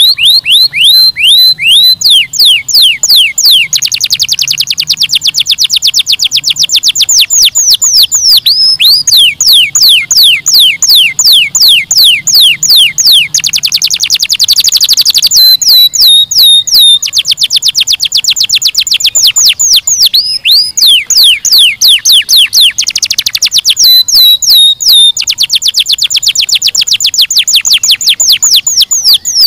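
Domestic canary singing: long trills of repeated downward-sweeping notes, some slow and some very rapid, with short breaks between phrases.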